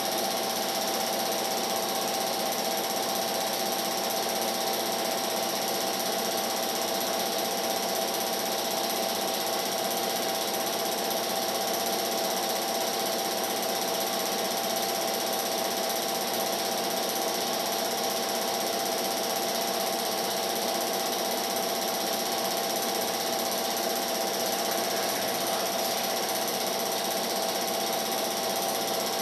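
Film projector running, the steady rapid clatter of its mechanism with a constant hum and hiss.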